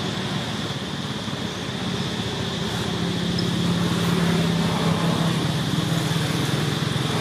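A motor engine running steadily with a low drone, growing louder about three seconds in, over a constant high-pitched hum.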